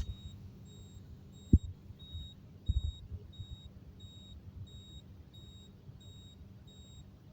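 Fire alarm panel's buzzer beeping faintly in a steady pulse, a little under two high beeps a second, over a low electrical hum. Two soft knocks come about one and a half and two and a half seconds in.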